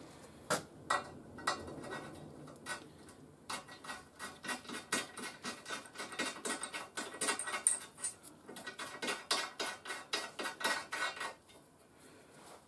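Threaded steel stud being screwed by hand into a rivnut in a steel channel: rapid metallic clicking and scraping, a few scattered clicks at first, then a steady run that stops near the end.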